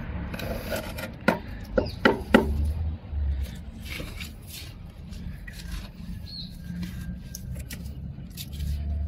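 A few sharp knocks or clicks about one to two and a half seconds in, then faint scraping and rustling handling noise, over a low steady rumble.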